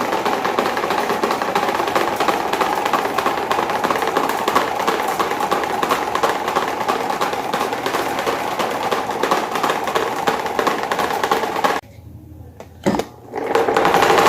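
Malfunctioning CCE electric fan running with a fast, steady rattle, vibrating hard enough to walk across the floor. The noise breaks off for about a second and a half near the end, then starts again.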